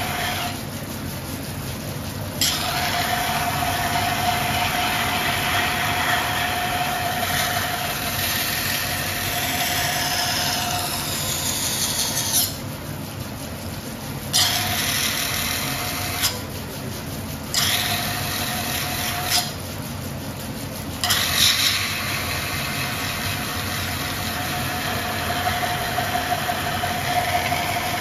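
Kaiten wet grinder's 36-inch carborundum wheel running under a steady low hum, with steel pressed against the turning wheel in long passes: a gritty grinding hiss with a thin squeal, broken four times by short pauses when the blade is lifted off.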